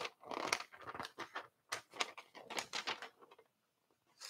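A freshly sharpened Spyderco Paramilitary 2 blade slicing newspaper in a quick series of short, crisp cuts with paper rustling, stopping about three seconds in. It is a paper test of the new edge, which is cutting super smooth.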